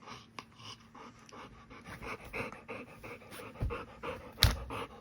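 Pet dog panting in quick, even breaths, with one sharp knock near the end.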